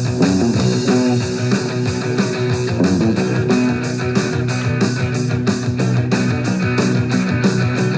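Rock music with guitar and a steady, driving beat.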